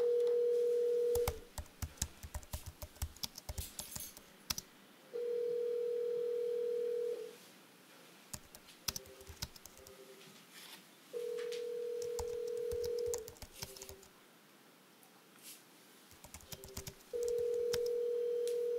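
Telephone ringback tone on the calling end of a line, in the North American pattern: a steady low tone about two seconds long, repeating every six seconds, four times. The called phone is ringing and has not been answered. Faint clicks and taps fall in the gaps between rings.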